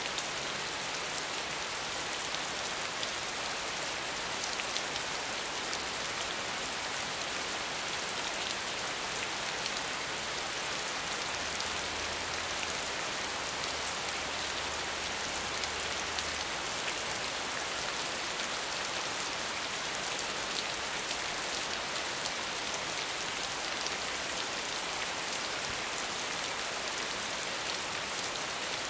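Medium rainfall falling steadily: an even wash of rain with many small, sharp drop ticks scattered through it.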